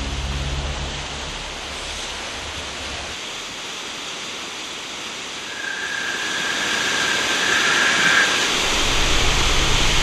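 Fast, churning river water rushing steadily, growing louder about six seconds in.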